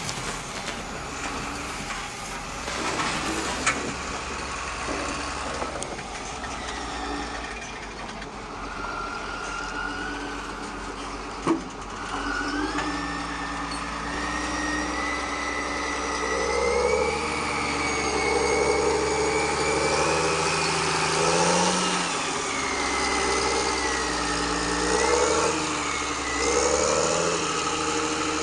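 Radio-controlled Bruder Volvo A60H model dump truck tipping its load: soil and stones rattle and crackle out of the raised body for the first few seconds. From about twelve seconds in, a motor whine rises and falls again and again over a steady engine-like hum.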